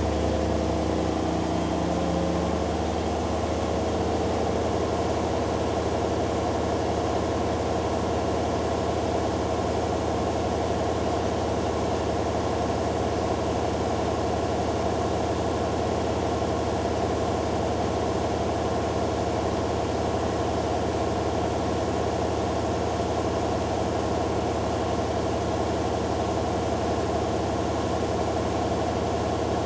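Hoover Dynamic Next DXA610IW3 front-loading washing machine in its spin cycle: motor and drum running at a steady spin with a constant low hum and whine. The pitches shift for the first couple of seconds, then settle and hold.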